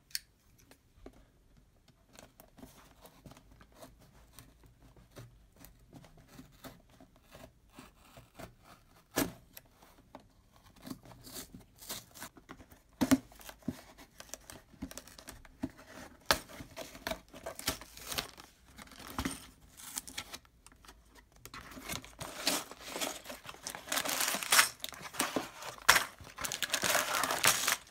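A Lego set's cardboard box being opened by hand: scattered clicks and taps as the flap is worked loose, then loud tearing and rustling of cardboard and packaging for the last several seconds as the contents are pulled out.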